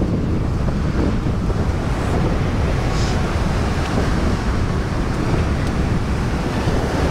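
Ocean surf washing in at the shoreline, with heavy wind buffeting on the microphone.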